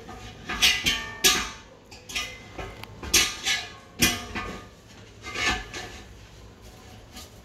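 Metal pots and pans clanking and knocking against each other as they are rummaged through for a heavy pot, about nine knocks, the first few ringing briefly.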